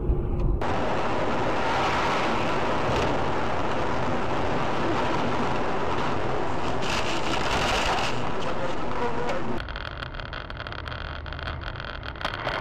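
Steady road and wind noise of a car driving, recorded by a dashcam, dropping suddenly to a quieter recording near the end.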